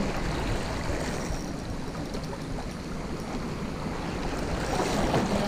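Steady wash of sea surf along the shore, mixed with wind noise on the microphone.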